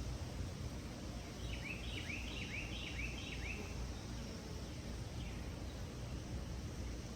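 Steady low outdoor background noise, with a bird calling a quick run of about six short descending chirps a second and a half in, and a fainter chirp later.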